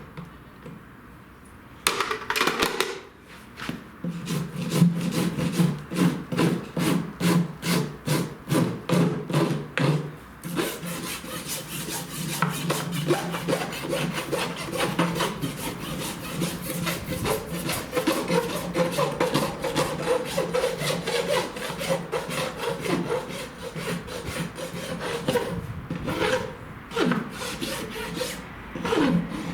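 Farrier's rasp scraping across a horse's hoof wall in repeated strokes, the finishing rasp after the nails are clenched. About two strokes a second at first, then quicker, shorter strokes from about ten seconds in.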